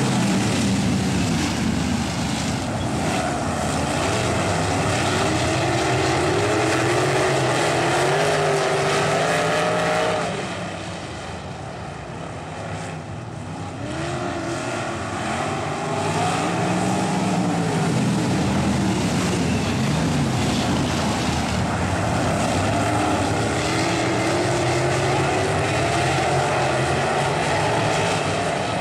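A pack of non-winged sprint cars racing, their engines rising and falling in pitch as they throttle on and off. The sound dips for a few seconds about ten seconds in, then builds again.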